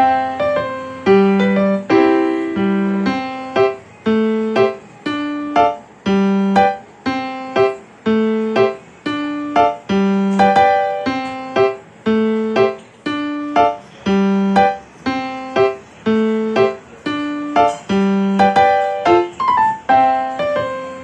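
Background piano music: evenly paced struck notes and chords in a steady, repeating rhythm, about two notes a second.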